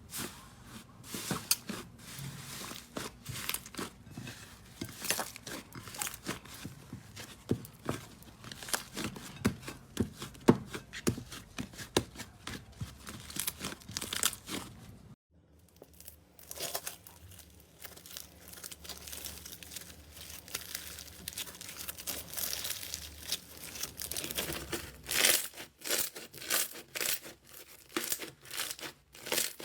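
Slime being squeezed and pressed by hand, giving dense, irregular crackles and pops. It breaks off suddenly about halfway and resumes in a second stretch of crackling.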